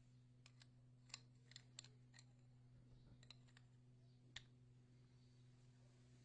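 Near silence: a steady low hum with about nine faint, sharp clicks scattered through the first half, the last and clearest about four seconds in.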